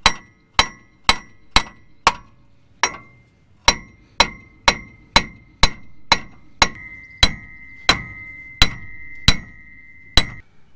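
Small sledge hammer striking steel, pounding a rusted-in wheel hub and bearing assembly out of a Ford Super Duty steering knuckle. There are about eighteen heavy blows, roughly two a second, and each one leaves the metal ringing, in the later blows without a break between them.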